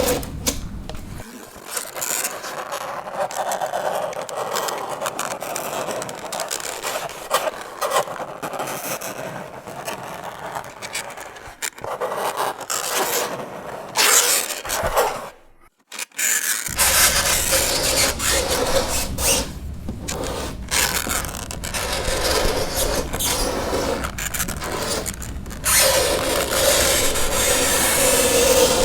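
Fingernails scraping across a chalkboard in continuous rasping strokes, with a squealing tone near the start and again near the end. The scraping breaks off for about a second just past halfway, then resumes.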